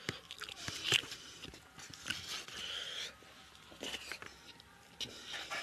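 Close-up eating sounds of a man chewing rice and chicken curry eaten by hand: soft chewing and lip smacks with a few sharp clicks.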